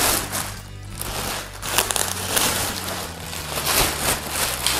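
Clear plastic packaging bag crinkling and rustling in irregular bursts as it is handled and pulled off a fishing landing net, over background music.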